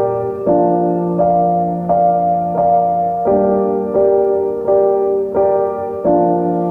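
Background music: a piano-like keyboard playing a steady pattern of struck chords, a new chord about every 0.7 seconds.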